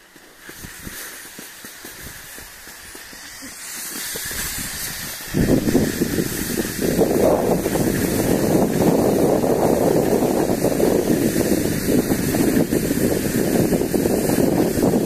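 Skis hissing and scraping over snow on a downhill run, with wind rushing over the microphone. Quieter at first, then much louder and denser from about five seconds in.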